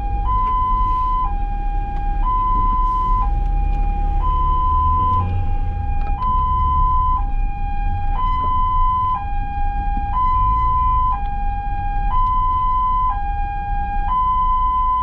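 Ambulance two-tone hi-lo siren, switching between a higher and a lower pitch about once a second without a break, over a low rumble of vehicle and road noise.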